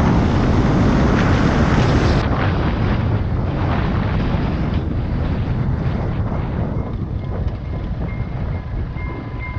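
Wind rushing over a motorcycle rider's helmet camera at speed, with the motorcycle's engine underneath; the rush eases as the bike slows. Near the end a railway level-crossing bell starts ringing, repeated high dings as the barriers come down.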